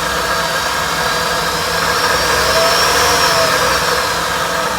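Car engine revved off idle by the accelerator pedal and held at about 2000 RPM. Its pitch rises a little, peaks about three seconds in, then eases back as the revs waver.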